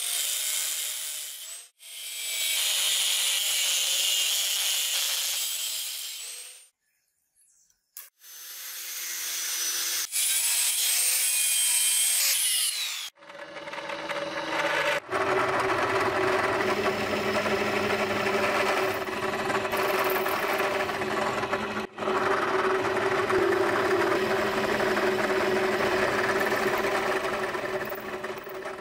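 Angle grinder with a thin cut-off disc cutting through steel bar in a vise, in three bursts with short breaks. From about halfway, a drill press runs steadily with a hum as its bit bores through a flat steel bar.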